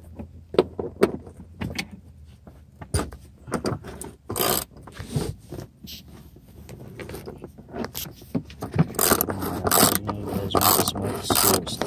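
Hand ratchet with a socket on an extension turning a bolt in the car's floor: irregular clicks of the pawl and knocks of the tool against the bolt and floor, coming faster and louder in the last few seconds.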